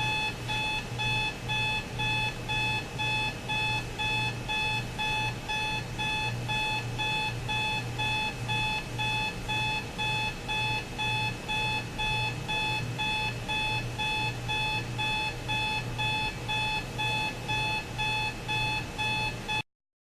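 Sonnet R-1634 LED alarm clock radio's alarm going off: an electronic beep repeating in a steady, even rhythm. It stops abruptly near the end.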